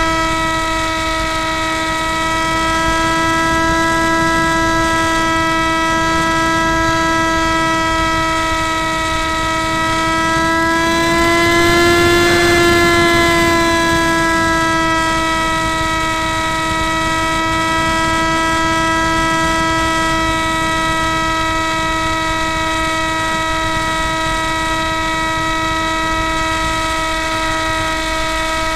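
Spyhawk RC model plane's motor and propeller heard through the onboard keychain camera, a steady pitched whine at cruising throttle. About twelve seconds in, the pitch rises a little and it gets louder, then it settles back.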